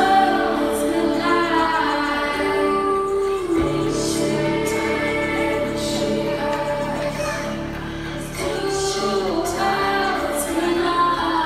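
Live music: a singer performing with a band, the melody sung in phrases with long held notes over light cymbal strikes.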